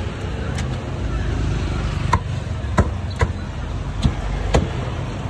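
Meat cleaver chopping grilled meat on a wooden chopping block: about six sharp strikes at uneven intervals, over a steady low rumble of road traffic.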